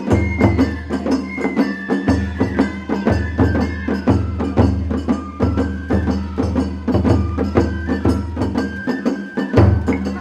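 Japanese festival hayashi music played live on a dashi float: a large taiko drum thudding steadily under rapid, sharp percussion strikes, with a high bamboo-flute melody stepping gradually downward.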